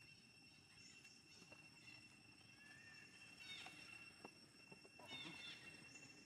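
Faint animal ambience: a steady high-pitched insect drone, with short high chirping calls from an animal about halfway through and again near the end.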